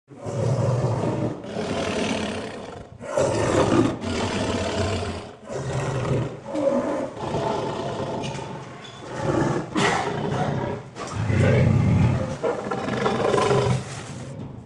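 Monster sound-effect roars: a string of loud, rough, growling roars, each lasting a second or two, one after another with short breaks.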